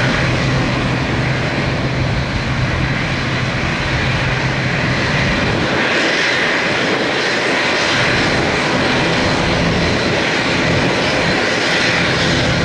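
Beech King Air's twin Pratt & Whitney PT6A turboprop engines running: a steady low propeller drone with turbine hiss. About halfway through the low drone weakens and the hiss grows louder.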